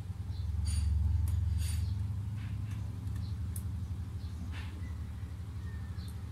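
Light clicks and taps of a small hand screwdriver and a screw against a laptop's bottom case as the last screw is backed out and lifted away, over a steady low hum.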